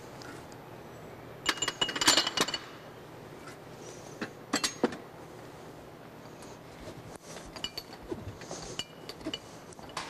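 Glasses and cups clinking against a metal serving tray as they are set down and moved, ringing briefly. A burst of clinks comes about one and a half seconds in, another at about four and a half seconds, and lighter clinks near the end.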